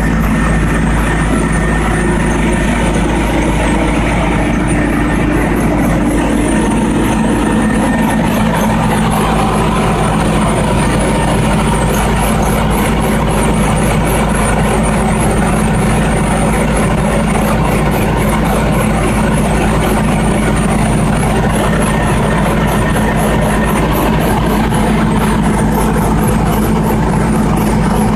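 Generac 27 kVA generator set's engine running steadily with a constant low hum.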